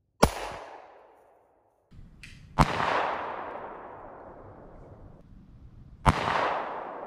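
Three pistol shots, spaced about two and a half and three and a half seconds apart. Each is a sharp crack followed by a long echoing tail.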